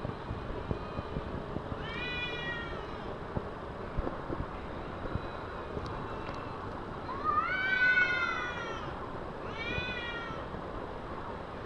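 Cats caterwauling at each other in a fight standoff: three long, wavering yowls that rise and fall in pitch, the loudest about seven seconds in, over a steady background noise.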